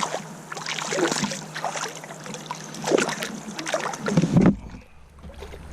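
Water splashing and irregular knocks around a kayak as a small spotted bass is brought in and handled. About four and a half seconds in this gives way to a steady low wind rumble on the microphone.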